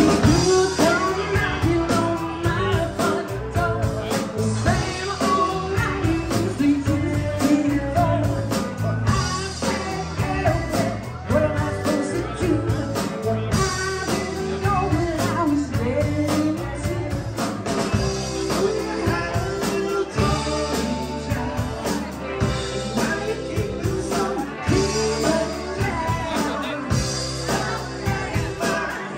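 Live rock band playing: a woman singing into a microphone over electric guitars and a drum kit.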